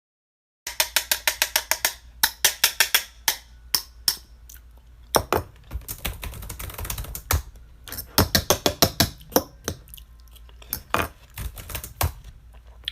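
Runs of sharp, quick clicks or taps, about eight a second, in several bursts with short pauses, starting suddenly under a second in.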